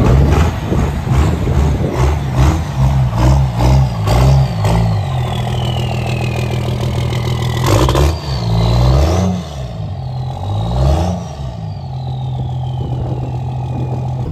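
A second-gen Dodge Ram's 12-valve Cummins turbo diesel, just started, revved in a run of quick blips over the first few seconds and then idling, with two more revs later. After the revs the turbo whistles, falling in pitch as it spools down.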